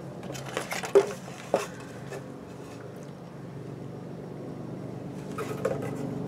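Handling noise from a rip-stop nylon reusable bag packed into a ball and its hanging tag: light rustles and two sharp clicks in the first two seconds, more faint rustling near the end, over a steady low room hum.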